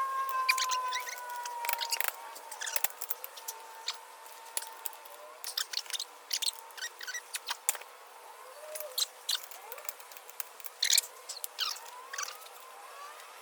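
An Allen key working on the seat-rail Allen bolts of a car seat: irregular small metallic clicks and ticks, with a thin squeal falling slightly in pitch over the first two seconds.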